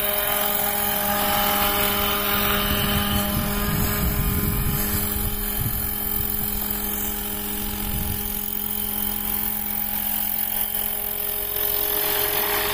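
Battery-electric 800-size scale RC helicopter, a Roban Airwolf, hovering low: a steady whine from its motor and rotor drive runs throughout. A gusty low rumble is strongest in the first half.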